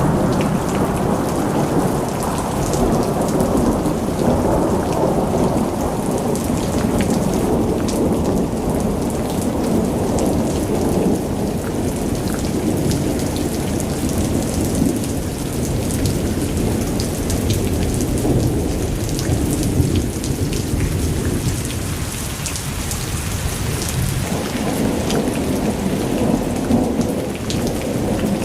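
Waterfall in spate, swollen with floodwater: heavy water rushing and crashing down in a loud, steady, deep noise.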